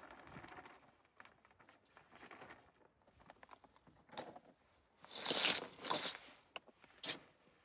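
A 20 kg plastic fertilizer sack is handled: soft shuffling and footsteps on tilled soil, then a loud crinkling and scraping of the sack about five seconds in as it is gripped and pulled, and a short sharp knock a second later.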